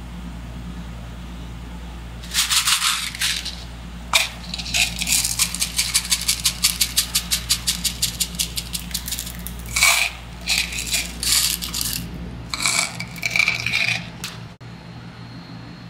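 Metal spatulas chopping and scraping ice cream on a rolled-ice-cream cold plate. There is a brief scrape, then a fast run of taps at about eight a second for several seconds, then several more scrapes. A steady low hum underneath stops about two-thirds of the way through.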